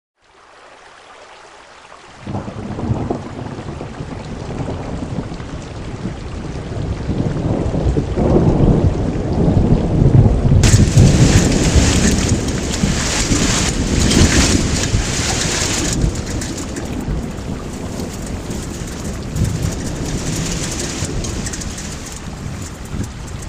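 Thunderstorm: heavy rain pouring down with thunder rumbling, the rumble strongest about ten seconds in. From about eleven seconds the rain sound turns brighter and fuller.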